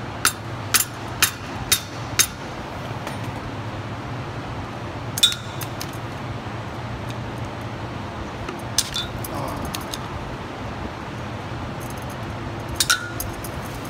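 Flat screwdriver clinking against a steel truck hub and its old seal as the seal is pried out: five quick metallic taps about half a second apart, then a few single clinks, some ringing briefly, over a steady low hum.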